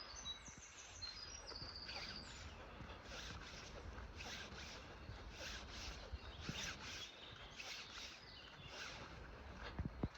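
Faint forest ambience: a songbird's short, high, stepped phrases in the first couple of seconds, then irregular soft rustling noises over a low rumble.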